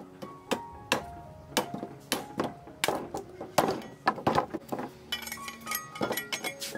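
Irregular sharp cleaver strokes, about two a second, shaving the rind off a sugarcane stalk, over background music.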